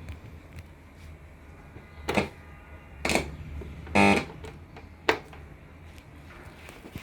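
Korg M50 synthesizer keyboard sounding four short notes about a second apart, the third the loudest, over a steady low hum.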